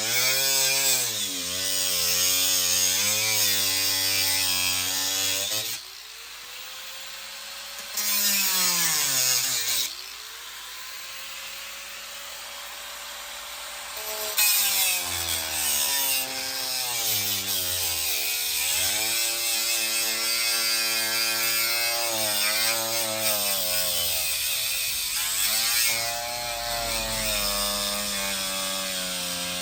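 Electric power saw cutting wood, its motor pitch dipping and rising as the load changes. It eases off twice in the first half before cutting again.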